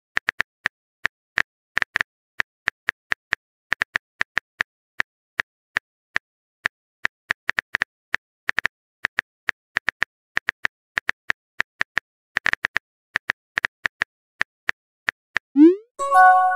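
Texting-app keyboard typing sound: a long run of light, quick taps at an uneven pace, a few a second. Near the end a short rising pop and a message chime as a new text message appears.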